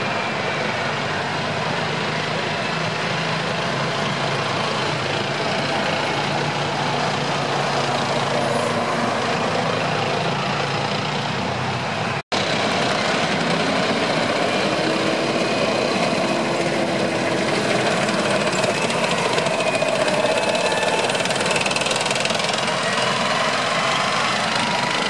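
Column of M1 Abrams tanks driving past: the steady whine of their gas-turbine engines over the noise of the tracks on the road. The sound drops out for an instant about halfway through.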